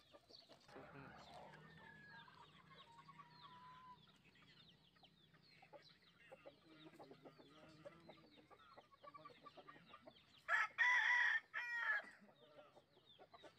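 A rooster crows once, loudly, about ten seconds in. Quieter clucking and bird chirps run through the rest.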